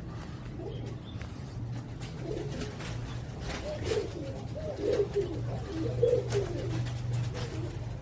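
Domestic pigeons cooing, several warbling coos one after another and overlapping, more frequent in the second half. A steady low hum runs underneath.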